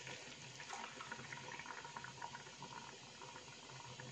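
Boiling water poured from a glass mug into a stainless-steel pot of rice and chicken, a faint steady pouring.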